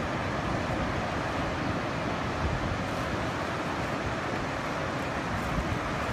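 Ocean surf from typhoon swell washing steadily onto the beach, with wind buffeting the microphone as an uneven low rumble.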